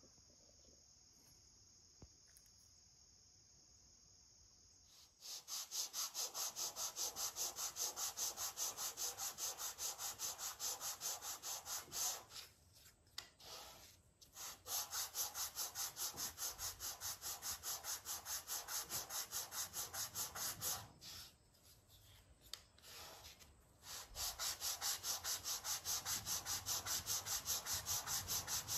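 Sandpaper on a hand sanding block rubbed over end-grain wood in quick, even back-and-forth strokes, starting about five seconds in, with two short pauses.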